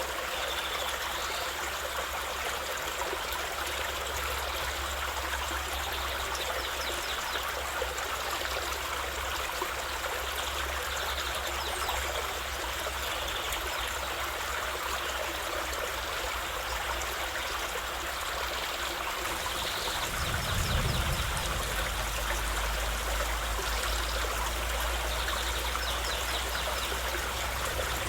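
Small waterfall: water running and splashing steadily over rocks, with a brief low rumble about twenty seconds in.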